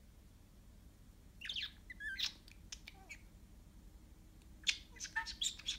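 Budgerigar giving short, sharp squawks and chirps in bursts, starting about one and a half seconds in, with a quick run of them near the end.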